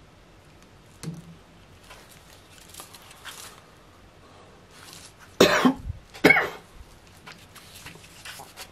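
A person coughing twice in quick succession, about halfway through, over faint rustling and light clicks from a leather knife sheath being handled.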